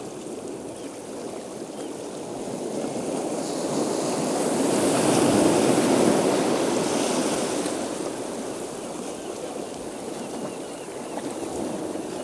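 Ocean surf: a steady wash of breaking waves that swells to a peak about five seconds in and then eases back.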